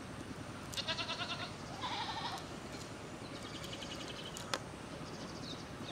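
An animal calling four times in short, rapidly pulsed calls over a steady low background noise, with one sharp click about four and a half seconds in.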